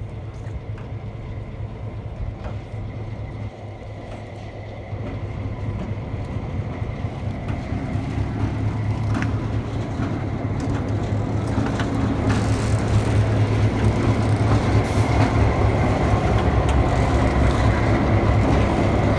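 Diesel-electric locomotive engine running with a steady low rumble, growing steadily louder from about a third of the way in as the locomotive draws close.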